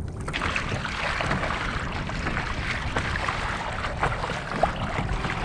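Steady rush of wind and choppy sea water around a small fishing kayak on a rough ocean, with wind buffeting the microphone.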